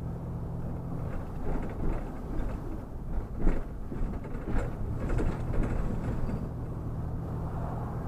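Vehicle engine and road noise heard from inside the cab, with irregular rattles and knocks and one sharper knock about three and a half seconds in.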